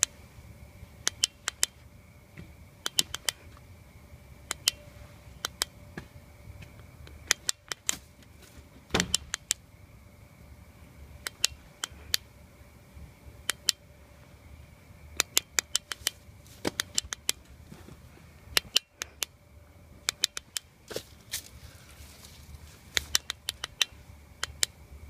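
Irregular sharp clicks and taps, often in quick pairs or threes, with one louder, duller knock about nine seconds in, over a faint steady hum with a thin high whine.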